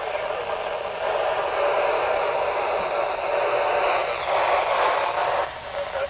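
Handheld FM radio's speaker hissing with static while tuned to the AO-27 amateur satellite's downlink between transmissions. Near the end the hiss drops away as a signal comes in.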